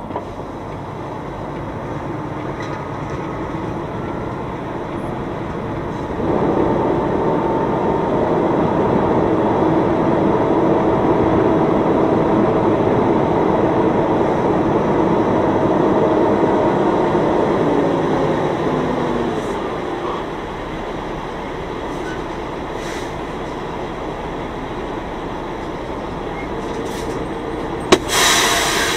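Semi truck's diesel engine running under light load as the rig backs slowly, growing louder about six seconds in and easing back down near twenty seconds. Near the end a sharp click and a short burst of air hiss, typical of the air parking brakes being set once the truck stops.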